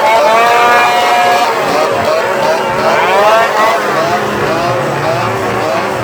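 Several straight-piped chainsaws revving loudly at once, their overlapping engine notes rising and falling. One holds a high steady rev for the first second and a half, and another swoops up and back down about three seconds in.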